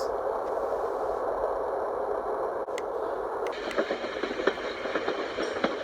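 A small portable sleep sound machine's speaker playing a steady rushing noise track. Two sharp clicks come a little before the middle, after which a finer crackling texture joins the rush.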